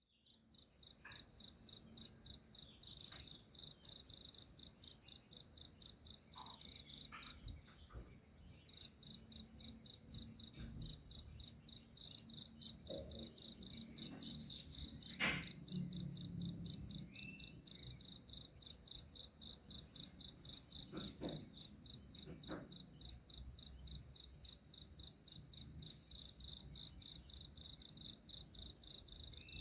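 A cricket chirping steadily, about four even chirps a second, with brief pauses, and a sharp click about halfway through.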